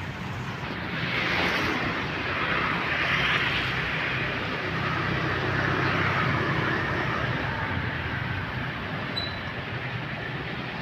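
Road traffic going by, motorbike and car engines with tyre noise, swelling as vehicles pass about a second in and again a few seconds later.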